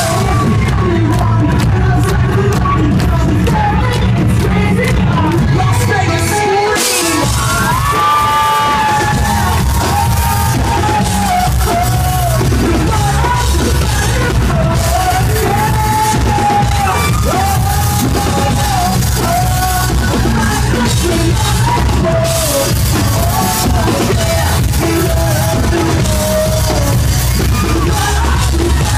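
Live pop-rock band playing loud: a lead vocal line over electric guitar, bass and drums, with shouts from the crowd. The bass and drums drop out briefly about seven seconds in, then come back.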